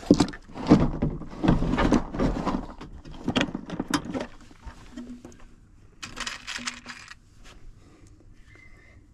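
Hands handling tools and wiring parts: irregular rustling and knocks for about four seconds, a short scraping sound about six seconds in, then a few small clicks.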